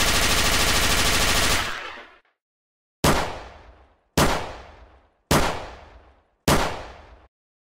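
Gunfire sound effects: a rapid automatic-fire burst lasting under two seconds, then four single shots about a second apart, each trailing off over about a second.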